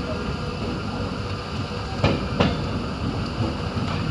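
Passenger train running on the rails with a steady rumble. About two seconds in, the wheels give two sharp clacks about a third of a second apart as they pass over a rail joint.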